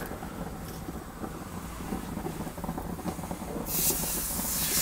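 Gas grill burners running with a low, steady rush; nearly four seconds in, a ribeye steak laid onto the preheated salt plank starts sizzling with a sudden loud hiss that keeps going.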